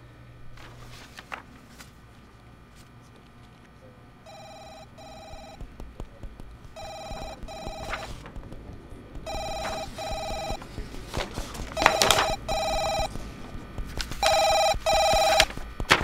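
Telephone ringing in a double ring, two short rings every two and a half seconds or so. It starts about four seconds in and grows steadily louder.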